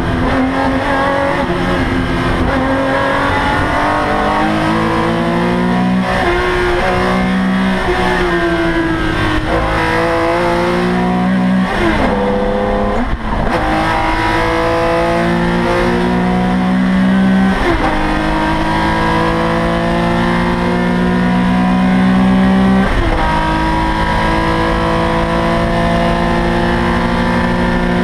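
Porsche 911 ST's air-cooled flat-six racing at high revs, heard from inside the cockpit. The note climbs steadily in each gear and falls sharply at each of several gear changes, with a quick downward sweep about twelve seconds in as the car slows.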